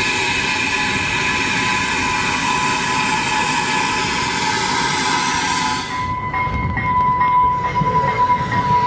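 A push-pull commuter train of bilevel coaches arriving with its cab car leading. For about the first six seconds a long steady hiss with several high tones in it cuts in and out sharply. Then the coaches roll past close by with a low rumble and clicking wheels, and a high wheel squeal rises near the end.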